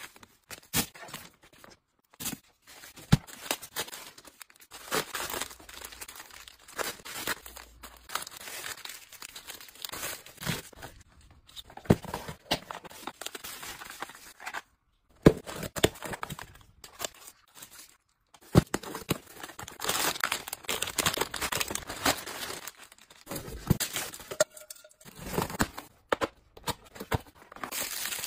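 Plastic packaging and bubble wrap crinkling, rustling and tearing as parcels are unpacked by hand, with a few abrupt short breaks.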